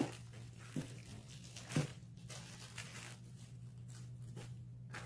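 Small plastic accessory bags and cardboard packaging rustling and crinkling as they are handled, with a few short sharp rustles scattered through.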